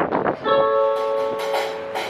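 Live band music: a held keyboard chord comes in about half a second in, with short percussive strokes over it.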